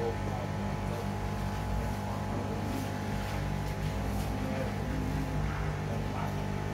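Steady electrical hum with several even tones from a handheld soldering rework tool held against a power supply circuit board, with a few faint ticks.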